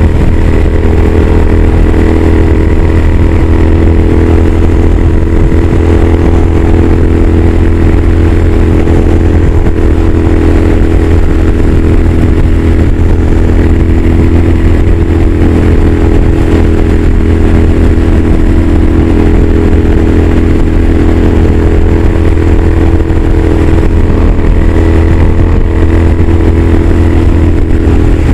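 2015 Triumph Scrambler's air-cooled parallel-twin engine running steadily at highway cruising speed, heard from the rider's seat. The engine note holds even throughout, with no shifts or revving.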